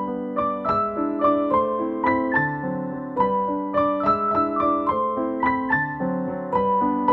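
Background piano music: a gentle melody of evenly paced notes, about three a second, over lower held notes.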